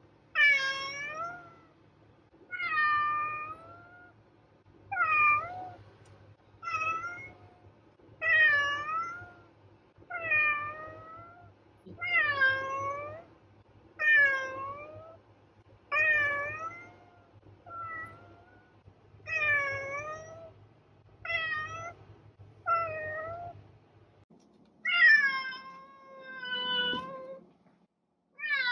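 Domestic cat meowing over and over, one meow every second and a half to two seconds, each call dipping and then rising in pitch. About 24 seconds in, the hum behind the calls stops and another cat's three longer meows follow.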